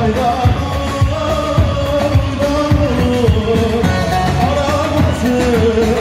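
Live Turkish folk wedding music: a man singing into a microphone over an electric bağlama melody and a low drum beat.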